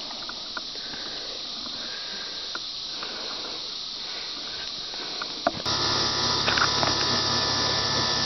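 A steady high-pitched insect chorus with a few faint clicks and knocks. About five and a half seconds in, this cuts to a louder steady low hum with a high hiss over it.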